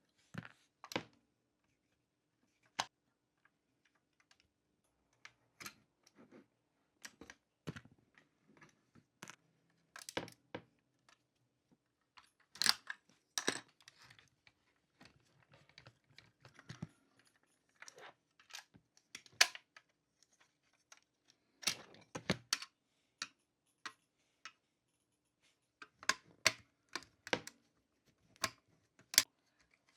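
Scattered small clicks and taps of hands handling the parts of a 1:18 diecast model car during disassembly, coming irregularly, in quicker clusters a few times.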